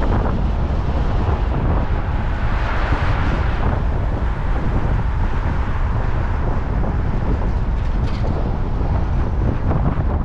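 Car driving with steady road and wind noise and wind rumbling on the microphone; the hiss swells briefly about three seconds in.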